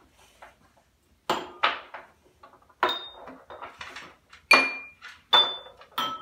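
Candy pumpkins and glassware clinking: about half a dozen sharp clinks, each with a short glassy ring, as the candies are put into empty drinking glasses and wine glasses and the glasses are handled.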